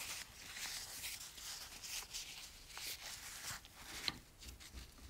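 Faint rustling of kitchen paper towel with a few light clicks and taps as a small plastic handlebar switch housing is wrapped and seated in a small bench vise.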